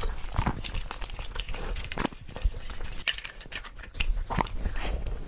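Close-miked crinkling and crackling of a blue baking cup being peeled off a dessert by plastic-gloved hands, with irregular sharp clicks and wet chewing sounds.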